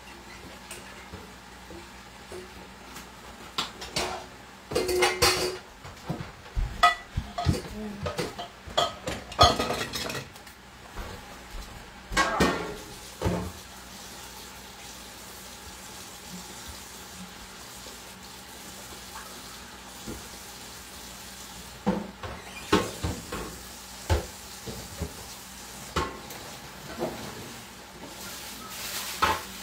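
Dishes and utensils clinking and clattering in a stainless steel kitchen sink, in two bouts of quick knocks: one from a few seconds in to about halfway, and another starting about three quarters of the way through.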